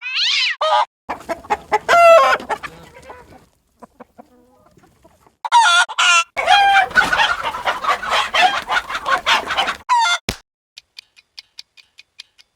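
Cartoon sound effects of chickens clucking and squawking, in several separate clips with short gaps between them. Near the end a quick, faint run of ticks follows.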